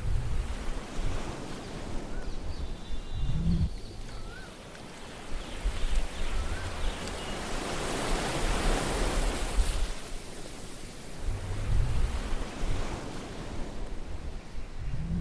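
Sea-wave sound effect: surf washing in and drawing back in slow swells, loudest around the middle.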